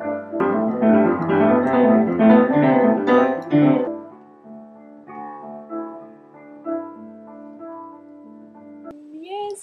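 Keyboard playing with a piano sound: held chords under a loud flurry of quick notes for the first few seconds, then softer sustained chords.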